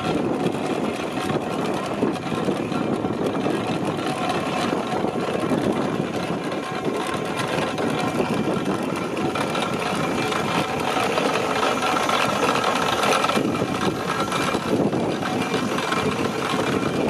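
Steam traction engine on the move, with a steady, rapid exhaust beat and the clatter of its working parts.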